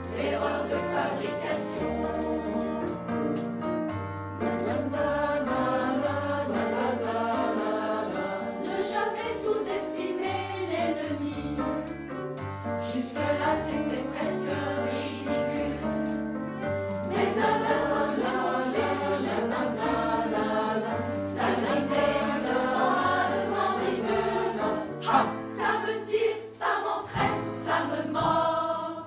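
Mixed choir singing a song in harmony with instrumental accompaniment and a bass line underneath. The last few seconds break into short, accented notes.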